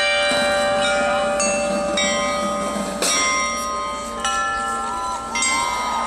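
Bells struck by performers hanging from a suspended rig, several pitches ringing together. A fresh strike comes every second or so, and each note rings on long after it is hit.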